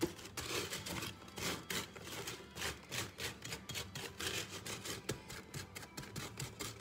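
A spatula scraping and pushing sugar-coated pecans across a baking sheet, the nuts clicking and rattling against the pan in quick, irregular strokes as they are spread into a single layer.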